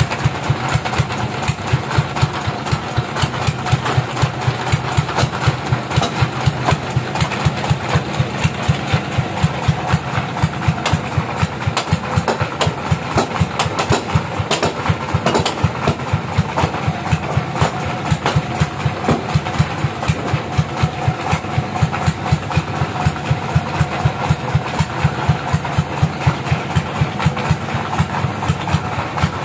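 Engine of a bandsaw mill running steadily, with a regular pulsing beat several times a second.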